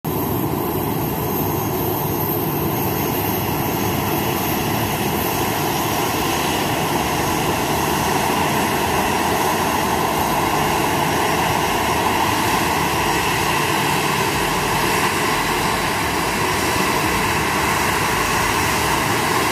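Boeing 737 airliner's twin jet engines running steadily at low taxi power as the aircraft turns on the runway: an even rushing hum with a whine in it, unchanging in loudness.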